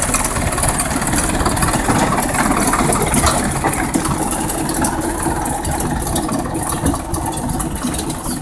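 Small narrow-gauge locomotive's engine running steadily as it pulls away along the track, getting slightly quieter towards the end.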